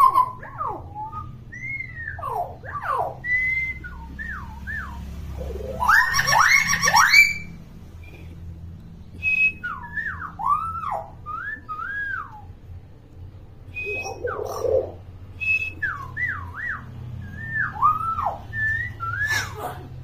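Common hill myna giving a string of short sliding whistles that swoop up and down, with a loud, rough rising call about six to seven seconds in.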